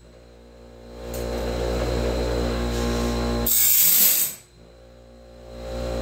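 Band-blade sharpener's grinding wheel brought down onto a tooth of a Wood-Mizer Turbo 7 sawmill band once, about three and a half seconds in: a hissing grind lasting about a second. Between strokes the grinder motor hums steadily.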